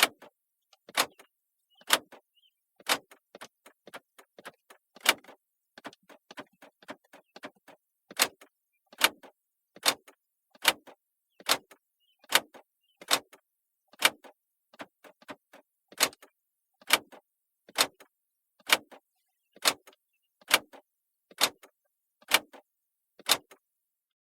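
Car door locks clicking locked and unlocked over and over, heard from inside the car: a sharp clack roughly every second, with fainter clicks in between.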